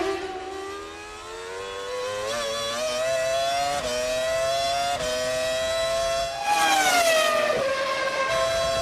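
BAR Honda's 3-litre V10 Formula 1 engine heard from the onboard camera. It accelerates out of a corner with the pitch climbing and upshifts near 4 and 5 seconds in. About six and a half seconds in it goes louder, then the pitch drops as the car brakes and downshifts, and it holds steady near the end.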